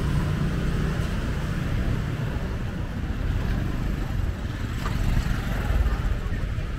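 Steady low rumble of street traffic, with motorbike and car engines running on the road, swelling a little about five to six seconds in.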